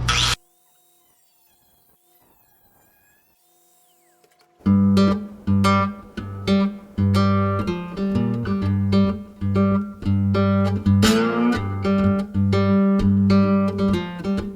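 A loud noisy sound cuts off right at the start, followed by a few seconds of near silence. About four and a half seconds in, strummed acoustic guitar music with a bass line begins at a steady beat, with a rising slide of notes around the middle.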